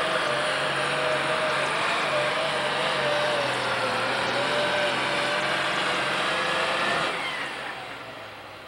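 966 International pulling tractor's 436 diesel engine with three superchargers running flat out under load, with a steady high whine over it. About seven seconds in the throttle is cut and the engine winds down, the whine falling in pitch.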